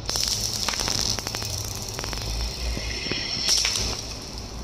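Glass marbles rolling across a hard polished floor and clacking into a heap of other marbles: a rapid run of sharp clicks with a high glassy ring, thickest in the first second and again in a louder cluster about three and a half seconds in.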